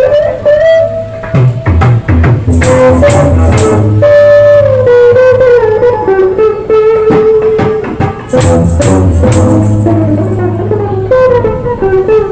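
Dangdut music performed by a street busker: a voice carries the melody in long held notes over a low bass line and rapid percussion.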